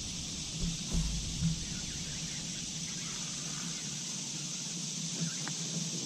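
Quiet open-air ambience with a steady high hiss and a few soft low thumps in the first second and a half, likely from handling in the boat. A faint single click comes near the end.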